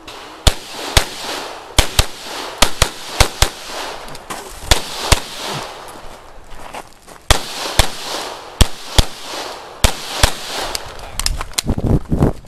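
Semi-automatic pistol fired rapidly from the shooter's position, roughly twenty sharp shots, mostly in quick pairs with short pauses between strings.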